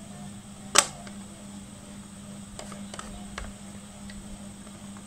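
A sharp plastic click as the battery cover of a Sanwa CD800a multimeter is pressed shut, followed by a few faint ticks of the plastic case being handled.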